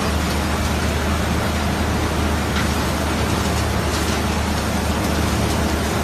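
Shaking tables of a heavy-mineral gravity separation plant running: a steady mechanical drone with a constant low hum from the drive heads and motors, and slurry water washing over the decks.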